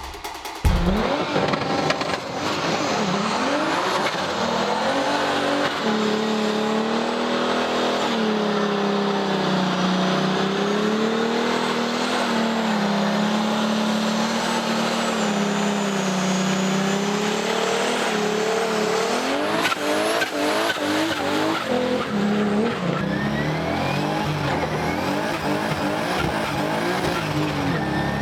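A car engine revs up, then is held at high revs for about twelve seconds with a slightly wavering pitch while the tyres spin and squeal in a burnout. Near the end it revs up in several short rising pulls.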